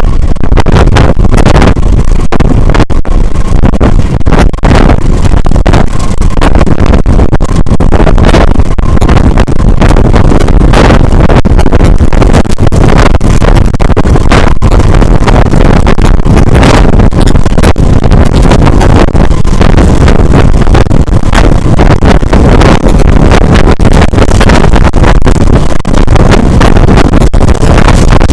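Loud, steady wind rush and buffeting on a microphone held out of a moving passenger train's window, over the rumble of the coaches running along the rails.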